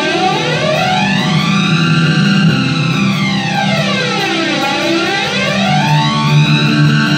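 Electric guitar chords played through a VOX 20-watt+ hybrid tube-and-digital amplifier, with a modulation effect that sweeps the tone slowly down and up again about every four to five seconds.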